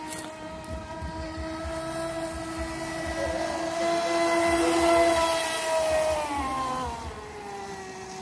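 Electric motor of a fibreglass RC yacht running on a 4S LiPo, whining at speed over the hiss of the hull and spray on the water. The whine swells to its loudest about four to five seconds in, then falls in pitch near the end and runs on lower.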